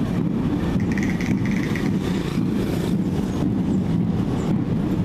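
Steady low rumble of wind buffeting the microphone over street noise, with no clear rhythm or strikes.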